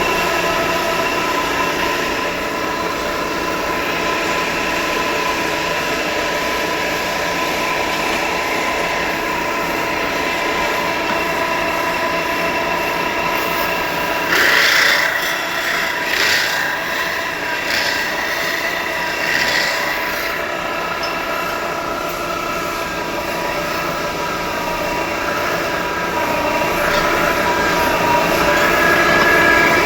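Metal spinning lathe running as a sheet-metal vessel is spun and formed, with a steady whine. Louder scraping squeals come in bursts about halfway through as the forming tool presses on the spinning metal.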